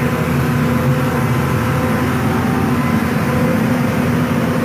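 Hydraulic excavator's diesel engine running steadily under load, with a constant low hum.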